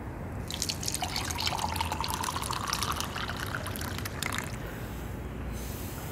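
Tea poured from a porcelain teapot into a china cup, a splashing stream whose pitch rises as the cup fills. It starts about half a second in and stops about four and a half seconds in.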